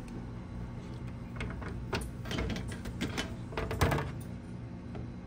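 Hinged clear plastic flap of a vending machine's pickup bay clacking open and a metal canister knocking against it as it is pulled out: a string of clicks and knocks, the loudest near the end.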